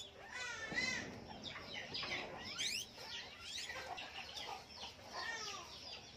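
Guinea pigs squeaking: a continuous run of overlapping high-pitched squeaks and quick rising whistles.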